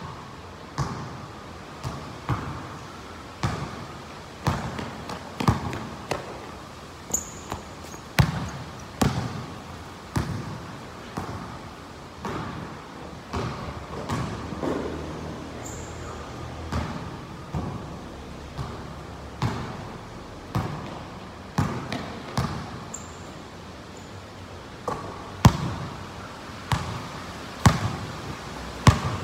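A basketball bouncing on a concrete court, roughly one bounce a second, each thud echoing under the high metal roof. The bounces grow louder near the end as the ball comes close.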